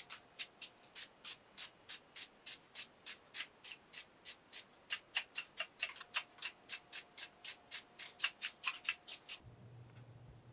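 Aerosol can of spray primer spraying in quick short bursts, about four a second, that stop suddenly about nine seconds in. A faint low hum follows.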